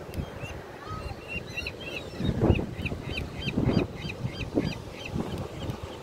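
Several gulls calling in quick series of short, repeated notes, about three or four a second at two different pitches, stopping shortly before the end. Under them runs a low rush of surf and wind on the microphone that swells loudest twice in the middle.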